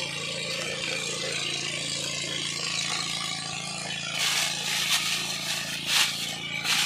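A utensil scraping against a cooking pot four or five times in the second half, over a steady hiss and a low hum.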